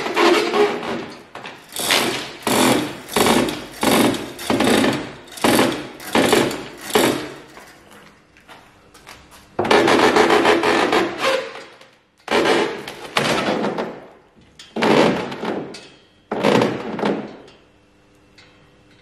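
Rough scraping strokes worked by hand along the edge of a fibreglass (GRP) boat moulding, about a dozen in an uneven rhythm, most short and a few longer, stopping near the end.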